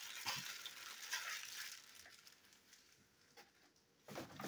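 Faint rustling and a few soft clicks of paper packaging being handled, dying away to near silence about halfway through, with a brief louder rustle just before the end.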